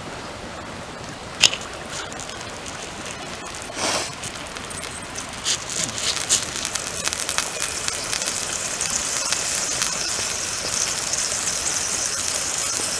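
Steak sizzling and crackling in a pan on a camping stove, the hiss growing louder from about six seconds in. A sharp click about a second and a half in.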